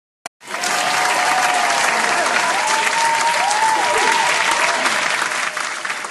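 Crowd applause with some cheering voices over it, starting abruptly about half a second in, just after a single click.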